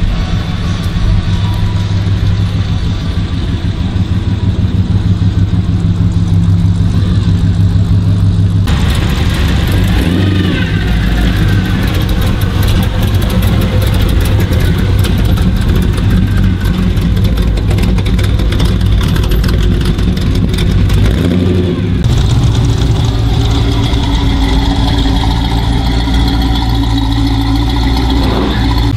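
Classic car engines idling with a steady low rumble, heard in three stretches that change abruptly about a third and three quarters of the way through. In the middle stretch, from a black Willys coupe hot rod with its driver at the wheel, the engine revs briefly near the start.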